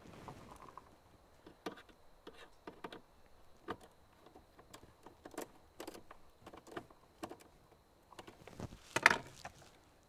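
Scattered small clicks and taps of hands working 12-volt wiring and plastic connectors at a fuse block, with a louder clatter about nine seconds in.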